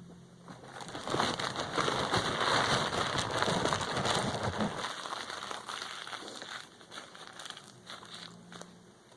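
Paper food wrapper crinkling and crackling, dense and loud for the first few seconds, then thinning out to scattered crackles.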